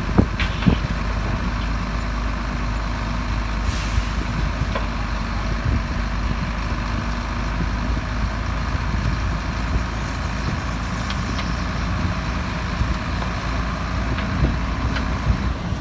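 Heavy diesel earthmoving machinery running steadily, with a few sharp knocks and clanks, most of them in the first five seconds.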